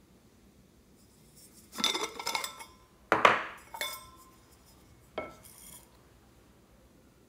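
Small hard objects clattering and clinking against a glass baking dish: a burst of ringing clinks about two seconds in, then one sharp knock about three seconds in, the loudest, and a lighter click near five seconds.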